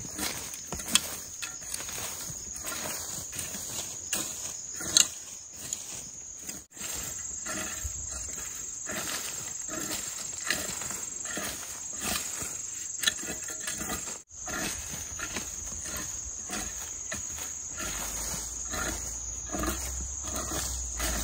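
Metal garden rake scraping through dry, cloddy soil in repeated irregular strokes, over a steady high insect drone.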